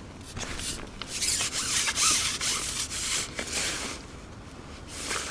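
Rustling, rasping noise from an angler reeling in: the spinning reel being wound and his waterproof jacket rubbing. It comes in uneven stretches, loudest from about a second in to about four seconds in, with a shorter burst near the end.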